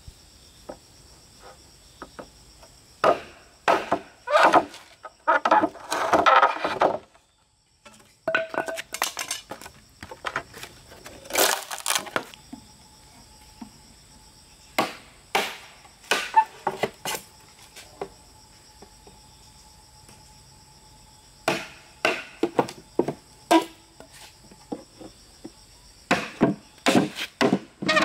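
Machete being struck and driven into bamboo poles to split them: irregular sharp knocks with bursts of cracking from the splitting bamboo. Behind them runs a steady high insect drone.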